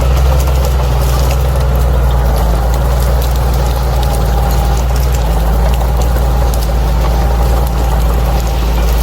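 Bulldozer's diesel engine running steadily, with a deep, even drone.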